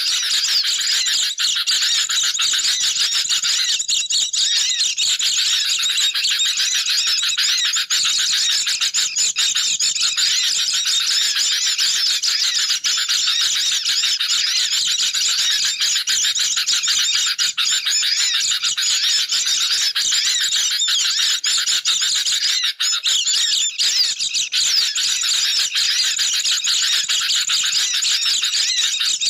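Dense, unbroken chorus of agitated bird calls: sooty-headed bulbul chattering in alarm mixed with the high twittering of white-eyes, a looped bird-lure (pikat) recording meant to draw birds in.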